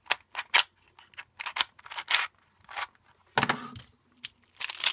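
Plastic 3x3 puzzle cube being turned by hand: short scraping clicks of its layers, in separate bursts roughly every half second.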